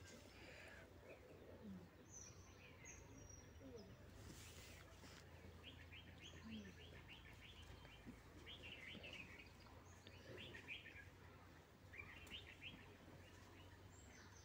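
Near silence: faint chirps and quick trills of small birds in the background over a low steady hum.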